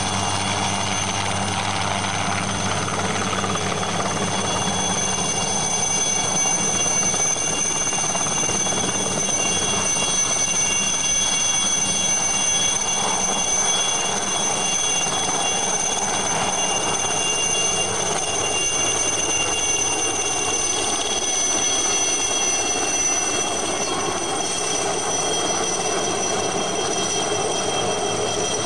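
Aérospatiale SA315B Lama helicopter's Turbomeca Artouste turboshaft running at power, with a steady high turbine whine over the rotor's noise, as the helicopter runs up and lifts off.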